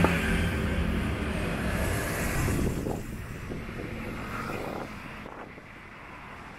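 A motor vehicle passing on the road, its engine and tyres loud at first and then fading away over about five seconds into quieter street background.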